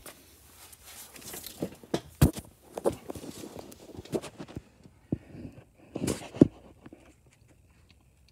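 Footsteps, scuffs and irregular knocks of a person moving and getting down under a tractor, with handling noise from the phone in his hand. Two sharper knocks come about two and six seconds in, and it goes quieter near the end.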